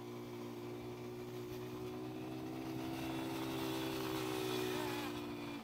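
Quad bike engine running at a steady pitch while riding, with a rising rush of noise in the second half.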